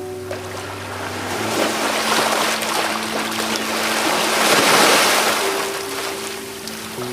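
Sea waves breaking and washing ashore in slow swells, the loudest crest about five seconds in, over soft sustained ambient music.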